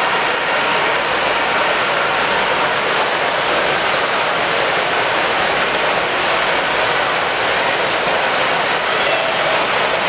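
Steady, loud background din of a crowded exhibition hall: many distant voices blending into an even rush, with no single sound standing out.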